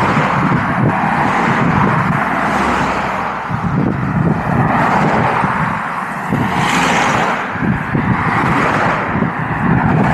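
Busy road traffic passing close by: a continuous rush of tyre and engine noise that swells and fades as vehicles go past one after another.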